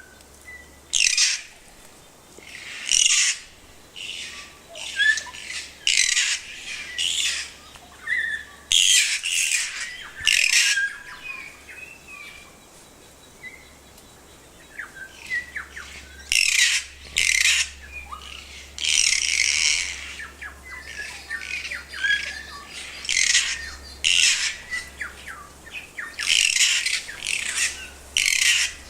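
Kākā (New Zealand forest parrot) giving loud, harsh, grating squawks over and over in uneven clusters, with a lull near the middle. Quieter short whistled notes come between the squawks.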